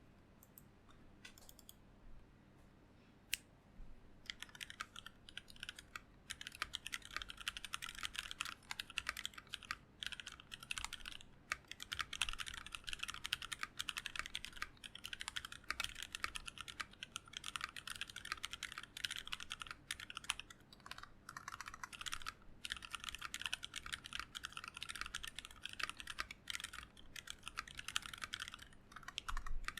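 Mechanical keyboard with factory-lubed 78g Seal linear switches on a brass plate, under blank ABS keycaps, being typed on. A few single keystrokes come first, then from about four seconds in a fast, continuous run of key clacks with brief pauses.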